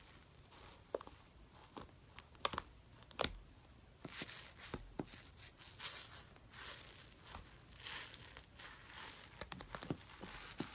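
Slime being squished and stretched by hand, giving irregular sticky clicks, crackles and small pops, a few of them sharper than the rest.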